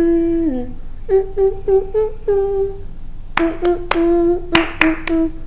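A woman hums a simple sing-song tune with closed lips ('mmm'), first a short falling phrase, then a run of quick repeated notes. About three seconds in, sharp hand claps start, struck over the humming several times.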